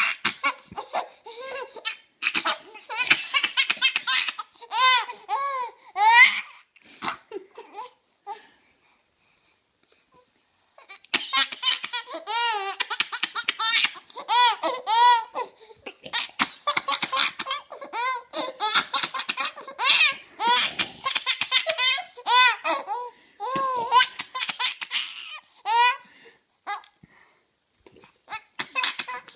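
Baby laughing uncontrollably in long, repeated fits of high-pitched laughs, with a pause of a few seconds about a third of the way through.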